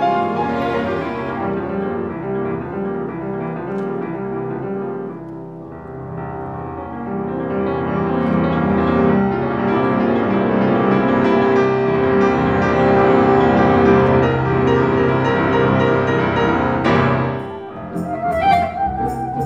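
Classical music: a grand piano playing with a symphony orchestra, strings accompanying. Near the end the music breaks off and changes to a clarinet playing with the orchestra.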